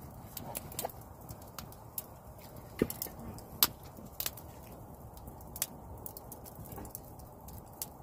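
Campfire of burning wood crackling in a fire stand: irregular sharp pops and snaps, a couple of them louder about three seconds in, over a low steady background.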